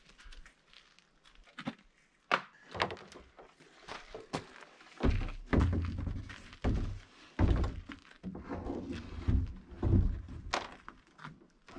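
A kayak knocking and thudding against a wooden rack on an ATV as it is lifted up and set in place. Sharp knocks and clicks come first, then a run of heavy, deep thuds starting about halfway through.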